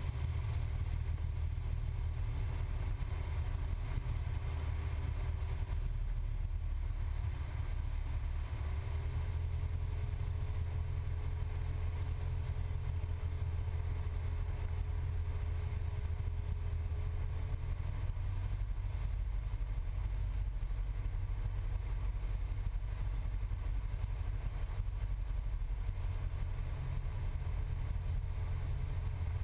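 Cessna 172's piston engine and propeller droning steadily in the cockpit during final approach, with a thin steady tone in the drone that shifts slightly up in pitch a couple of times.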